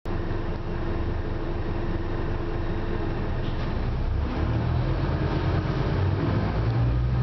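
Scania OmniCity single-deck bus heard from inside the passenger saloon: the engine running with a low rumble and a steady whine for the first three seconds. The rumble gets louder from about four and a half seconds in.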